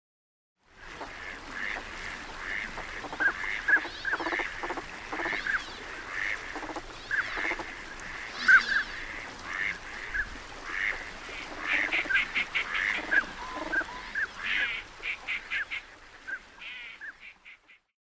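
Northern pintail calls: a long run of short pitched calls about one a second, broken by quick rattling series of notes about twelve and fifteen seconds in.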